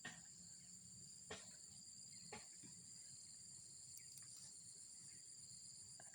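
Faint, steady high-pitched chirring of insects in a rice paddy, with three soft clicks in the first few seconds.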